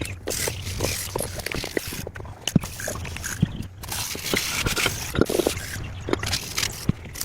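Scraping, with many scattered clicks and knocks over a steady low hum.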